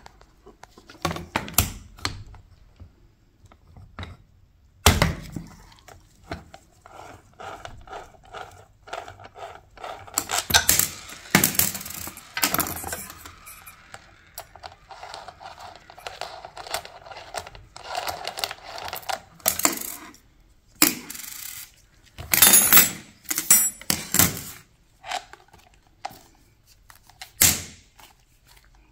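Nuts being loosened with a 10 mm wrench on a motorcycle's turn-signal bracket: irregular metallic clicks and clinks of the wrench and small metal parts, in scattered clusters.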